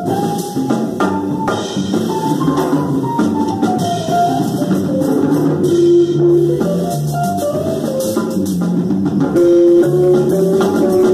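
Small jazz combo playing live: upright double bass walking under a drum kit, with a melody line moving above them.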